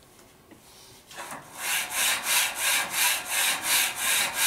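Fast rhythmic rasping, about three strokes a second, starting about a second in, in time with rapid repetitions of a bench press on a Smith machine.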